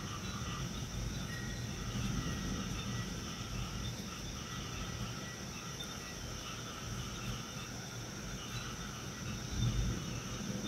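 Night insects such as crickets chirring steadily, over a low irregular rumble that swells briefly near the end.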